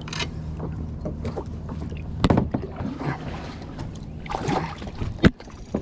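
Handling noise in a sit-on-top kayak during a fish fight: scattered knocks and rubbing against the hull and fishing rod, with a sharp loud knock about two seconds in and another near the end, over a low steady hum.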